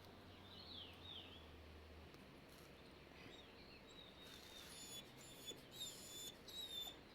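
Faint high-pitched chirping calls over low background noise, a few gliding chirps early and a quicker run of sharp chirps in the second half.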